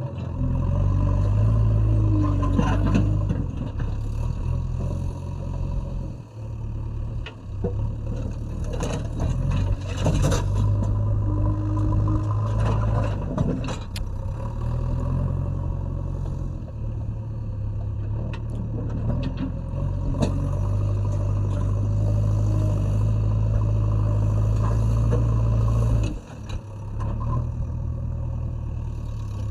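JCB 3DX backhoe loader's diesel engine running steadily under load while levelling, with scraping and clatter from the bucket and loose earth and stone. The engine sound dips briefly twice, about six seconds in and near the end.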